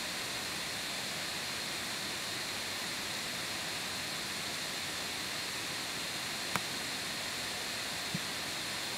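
Steady hiss of an open microphone with no one speaking, with one short click about six and a half seconds in and a fainter tick near the end.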